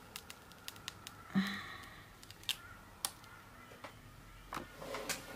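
Quiet handling of a cushion foundation compact and its packaging, with a few sharp clicks spaced a second or so apart as it is opened.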